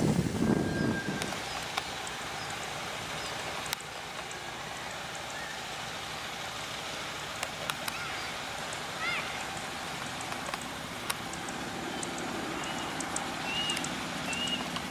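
Outdoor background noise: a rumble of wind on the microphone at the start, then a steady hiss with a few faint clicks and short high chirps.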